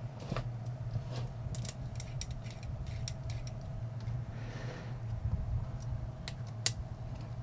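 A small screwdriver fitting and turning slotted screws into a metal vacuum pump housing: scattered light metal clicks and ticks, a brief scrape about halfway through and a sharper click near the end, over a low steady hum.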